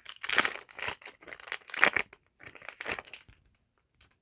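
Yu-Gi-Oh! card packaging crinkling and being torn open, a quick run of rips and rustles for about three seconds that stops, followed by a faint click near the end.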